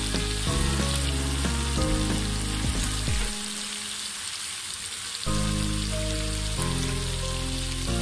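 Pieces of snakehead fish sizzling as they fry in hot oil and spice paste in a pan, with background music over it; the music's low notes drop out for about two seconds in the middle.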